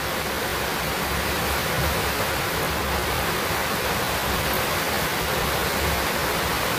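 Steady, even rushing noise, like a fan or hiss, with no distinct clicks or knocks in it.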